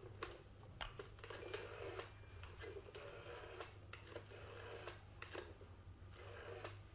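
Telephone being dialled: a string of faint, irregular clicks.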